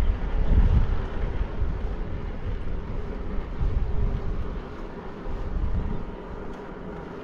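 Wind buffeting the microphone in irregular gusts, with a faint steady hum underneath; the buffeting eases off about six seconds in.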